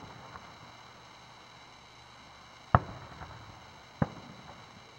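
Aerial firework shells bursting: two sharp bangs, the louder one nearly three seconds in and a second just over a second later, each trailing off in an echo.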